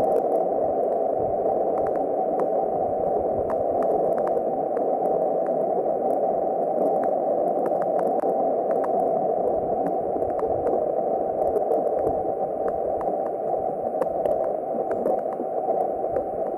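NASA's sonified data of the Sun's surface oscillations: a steady, dense noise with a sharp upper edge and faint scattered clicks.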